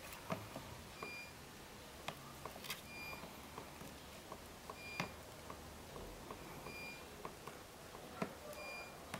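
A short, high electronic beep repeating about every two seconds, five times, over irregular light clicks and taps of a small turtle's claws scrabbling against the wall of a plastic tub.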